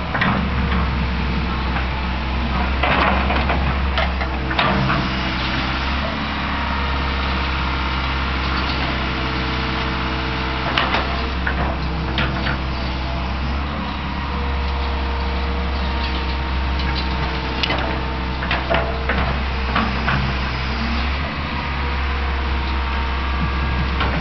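Fiat-Hitachi EX135 excavator's diesel engine running steadily under working load while the bucket drags and levels topsoil, with irregular knocks and clanks from the bucket and boom.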